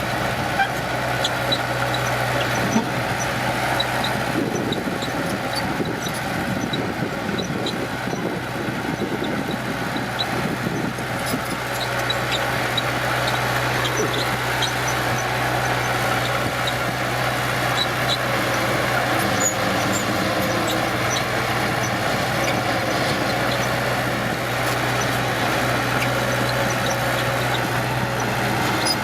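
Diesel engine of heavy earthmoving machinery running steadily under load, a constant low hum with many small high-pitched squeaks and clinks scattered through it.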